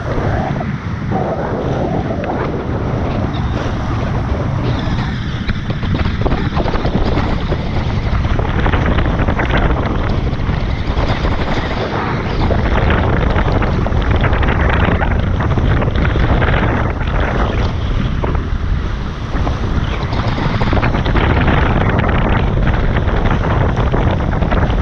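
Steady, loud wind buffeting on the microphone, with water rushing past the hulls of a Tornado catamaran under sail.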